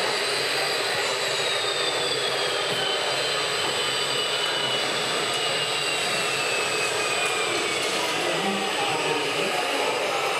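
Steady whirring of small electric motors from RC model trucks, with one motor's thin whine slowly falling in pitch.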